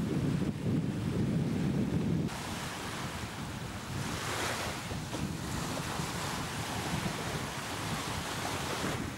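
Sea waves breaking and washing over a rocky shore, with wind buffeting the microphone. About two seconds in the low wind rumble stops abruptly and the hiss of foaming surf takes over, swelling about halfway through.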